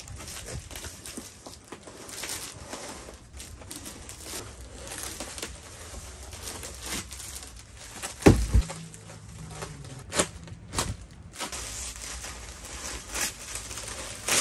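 Plastic wrapping being pulled from a cardboard shipping box and crinkling, with irregular rustling and several sharp knocks, the loudest about eight seconds in.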